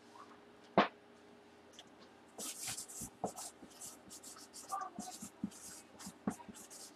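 Marker pen writing on a cardboard box in quick scratchy strokes, starting about two and a half seconds in, after a single sharp click about a second in.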